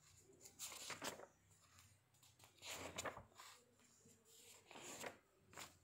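Near silence: quiet room tone with a few faint, brief rustles.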